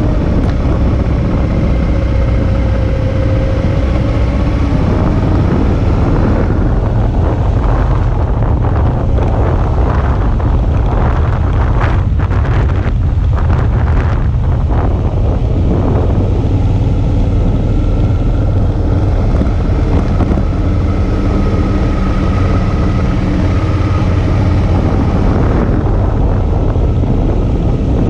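Suzuki V-Strom 650's V-twin engine running steadily under way, heard from a bike-mounted camera with wind noise on the microphone. The middle stretch turns rougher and noisier with short bumps and gusts.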